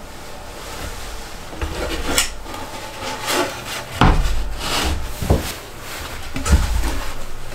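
Wooden board and post being handled: irregular knocks and rubbing scrapes of wood on wood, the heaviest knock about four seconds in.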